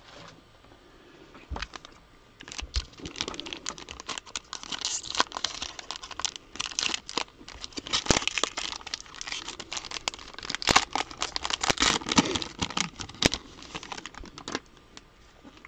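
A trading-card pack's wrapper crinkling and being torn open, with irregular sharp crackles and rustling as the cards are handled, from about a second and a half in until near the end.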